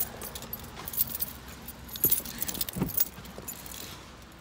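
A bunch of keys jangling and clinking as someone gets into a car's driver's seat, with a couple of louder knocks about two seconds in and again about a second later.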